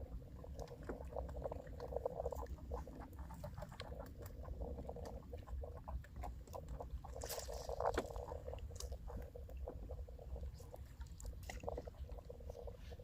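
Water lapping and pattering against a small fishing boat's hull, with irregular crackling and ticking over a steady low rumble; the crackling grows louder about seven seconds in.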